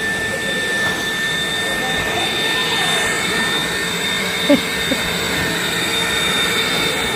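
Numatic vacuum cleaner running steadily: a constant motor whine over an even rush of air.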